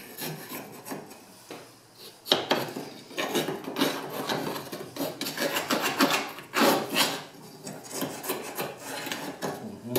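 Soot being scraped out of the inside of a wood-burning cookstove with a long hand tool worked through the opening in the stovetop, in repeated, irregular rasping strokes. The strokes are few at first and come thick and fast from about two seconds in.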